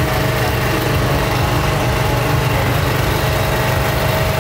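A steady, unchanging engine rumble with a constant hum running through it.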